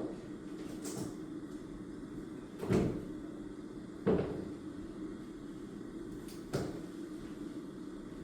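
A few soft knocks of things being handled and set down on a desk while studying, about three spread over several seconds, over a steady low hum of room tone.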